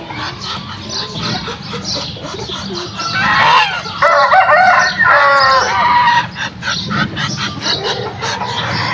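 Farmyard poultry calling: a loud run of calls lasting about three seconds in the middle, with quieter calls before and after.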